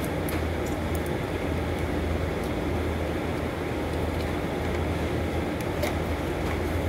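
Steady low hum of running machinery, unchanging throughout, with a faint click about six seconds in.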